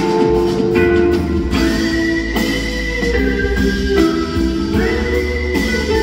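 Live concert music heard from the audience through the PA: an instrumental passage led by guitar, with long held high notes over it.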